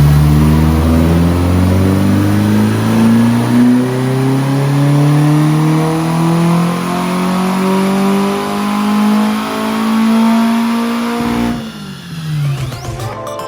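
Car engine under full load on a dyno pull, its pitch rising steadily in one long sweep for about eleven seconds, then the throttle closes and the revs fall away.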